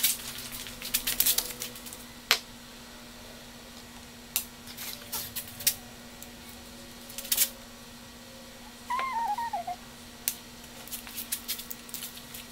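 Scattered clicks, taps and short scrapes of tools handled on a plywood work table as the center of a wooden board is marked out. There is a short wavering squeak about nine seconds in, over a steady low hum.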